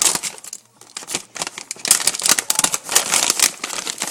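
Plastic bag of Canine Carry Outs beef-flavour dog treats crinkling and rustling irregularly as it is handled.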